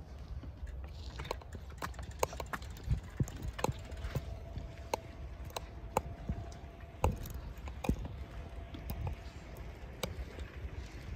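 Irregular clicks and knocks of a phone camera rattling on a bicycle rolling along a paved road, over a low wind rumble on the microphone. A faint steady tone sounds through the middle stretch.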